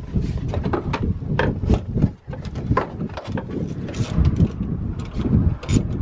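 Plastic airbox housing knocking and clicking irregularly as it is pushed and seated into place by hand.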